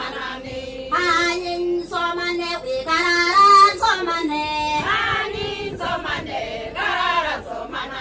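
A group of women singing a traditional song together in short sung phrases.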